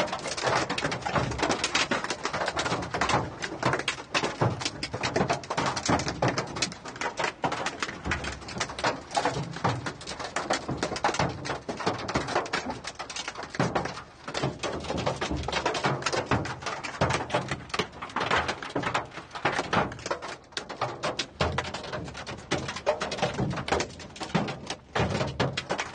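Hailstones pelting the ground in a heavy hailstorm: a dense, continuous clatter of countless small impacts.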